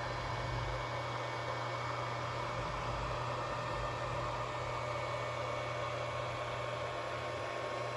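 Steady whir of a running fan, with a low hum and a few faint steady high tones.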